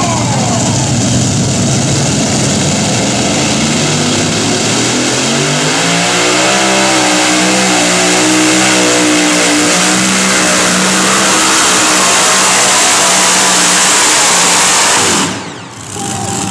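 Modified pulling tractor with two supercharged engines at full throttle, hauling the pulling sled. The engine note climbs in pitch over a few seconds, then holds high and steady. The sound drops out briefly near the end.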